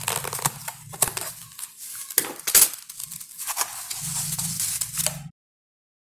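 Small scissors snipping through strands of cotton crochet string wound around a piece of cardboard, a few sharp clicks among crackly handling of the string and cardboard. The sound cuts off suddenly about five seconds in.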